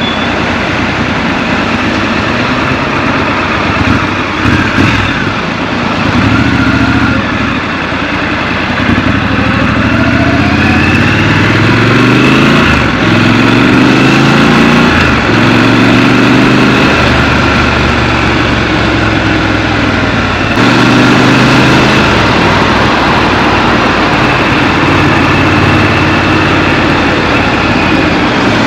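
Scrambler motorcycle engine running on a ride through city streets, its pitch rising as it revs and dropping as the throttle eases off, several times over, with a change in the sound about two-thirds of the way in.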